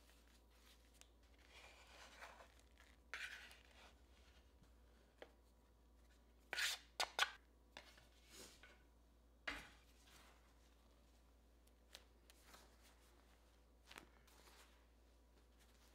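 Faint, quiet handling sounds: a couple of short scrapes or swishes, then a quick cluster of three sharp taps or clicks about six and a half seconds in, another about nine and a half seconds in, and a few light ticks after.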